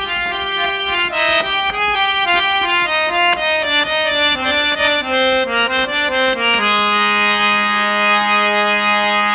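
A free-reed instrument plays an instrumental interlude between sung lines. A quick run of notes steps downward over a held low drone, then settles into a long sustained chord about two-thirds of the way through.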